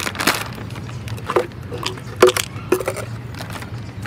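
Plastic handling noise: a plastic cat-food bag rustling and a large plastic jar's screw lid being twisted off, giving a run of clicks and crinkles with a few short squeaks. The sharpest click comes about two seconds in.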